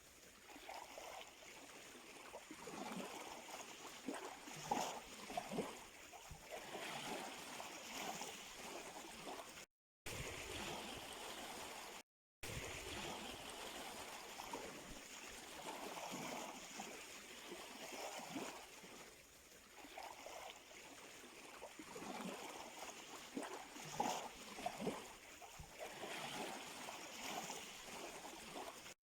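Sea surf at the shore: small waves washing in with splashing, gurgling surges of water. The sound cuts out completely twice, briefly, about ten and twelve seconds in.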